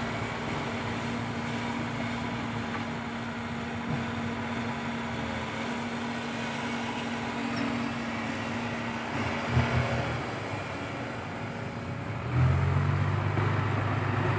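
Diesel engines of an Isuzu NPR dump truck and a Sumitomo SH130 excavator running steadily, with a couple of short knocks about ten seconds in. About twelve seconds in, an engine comes under load and grows louder as the excavator swings a full bucket of soil over the truck bed.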